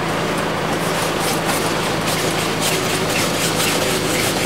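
GAZ-3309's four-cylinder diesel idling with a steady hum, heard from inside the cab, with light rubbing and clicking of a hand at the door panel.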